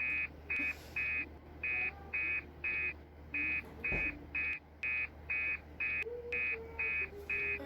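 An electronic beeper sounding a run of short, identical beeps, about two a second, with a low steady hum underneath.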